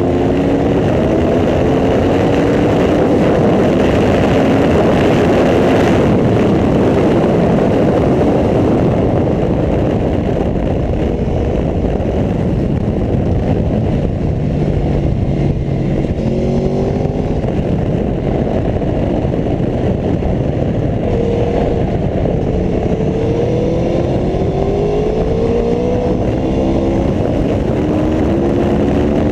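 Aprilia Tuono V4 1100RR's V4 engine pulling hard on track, its pitch climbing through the revs several times early on and again in the last third, with a lower, steadier stretch around the middle. A steady rushing noise runs under it throughout.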